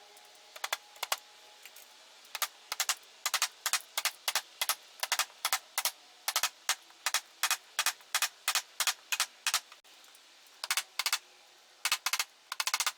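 A rapid run of short, sharp clicks or light taps, many in close pairs, about two to three a second, with a pause of about a second near ten seconds in.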